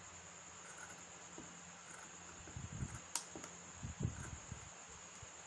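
Scissors cutting through cotton wax-print fabric, faint snips against a steady high hiss, with several soft knocks of the scissors and hands on the table and one sharp click about three seconds in.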